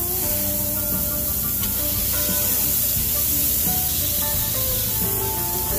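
Smash-burger beef patties sizzling steadily on a hot flat-top griddle, under background music with held notes.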